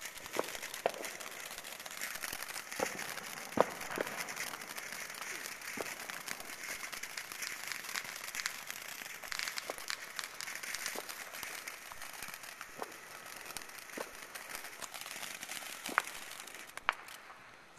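Ground fountain firework spraying sparks: a continuous hissing crackle with scattered sharp pops. It dies down near the end.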